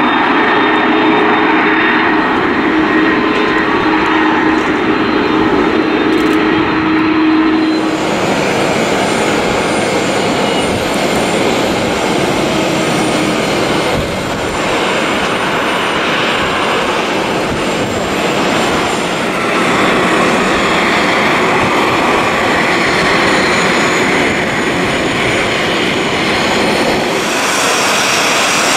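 Airliner jet engines. First an Airbus A330-300 taxies with a steady engine whine over the noise. About eight seconds in this gives way to the broad rushing roar of a Boeing 737-800 landing and rolling out, and near the end the 737's engines are heard taxiing.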